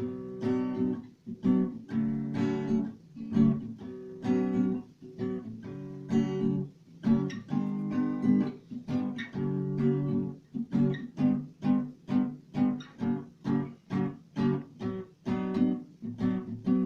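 Acoustic guitar strumming chords in a steady rhythm, about two strokes a second in the second half: the instrumental introduction to a song, before the singing begins.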